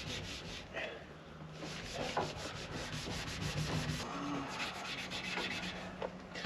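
Alcohol wipe scrubbed hard back and forth over the fire-charred painted dash, a fast, even rubbing of several strokes a second that pauses briefly about a second in, as it works the char off.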